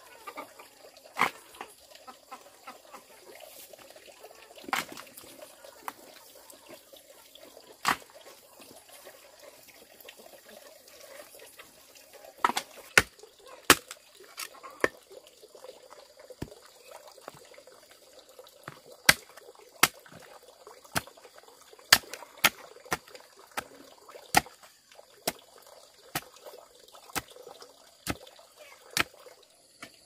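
Sharp knocks of a hand tool striking wood, a few widely spaced ones at first, then about one a second from about halfway through, over a faint steady background.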